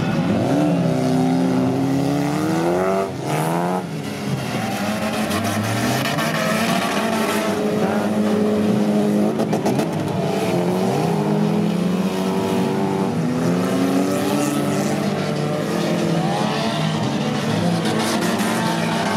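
Several stock car engines running hard on a dirt track, their overlapping pitches rising and falling as the cars accelerate, lift and change gear, with a brief drop in loudness about three seconds in.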